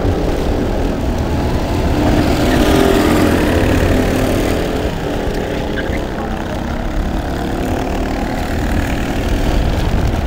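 Go-kart engines running, with one kart idling in the pit lane. The engine note weakens a little about halfway through.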